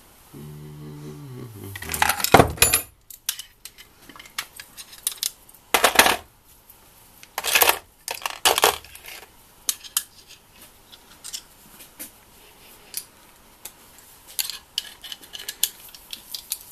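Steel sockets and tools clinking and clacking as they are handled in and picked out of a socket-set case, with several sharper metallic clacks and a run of small clicks near the end.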